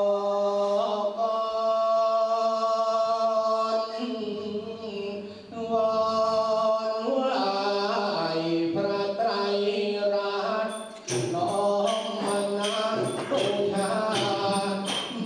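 A man chanting the su khwan blessing into a microphone in long, drawn-out sung phrases. From about eleven seconds in, a steady rhythmic tapping joins the chant.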